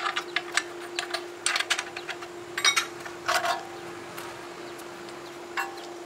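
Hard objects being handled: scattered short clicks and scrapes in small clusters, over a steady faint hum.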